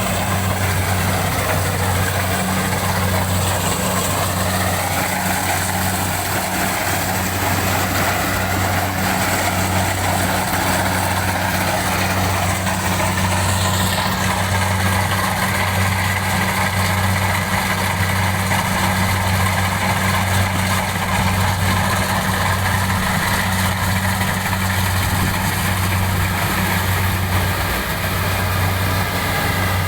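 An engine running steadily, a low, even drone that pulses slightly throughout.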